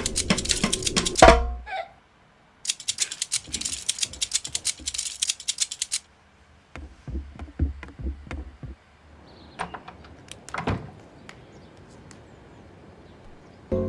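Percussive background music with a tapping, clicking beat that plays in short sections separated by a brief silence, then thins out to scattered low thumps and clicks.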